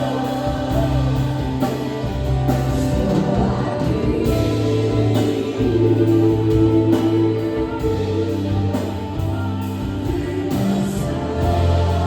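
Slow Christian worship song: a voice singing a melody over long, held low chords that change every few seconds.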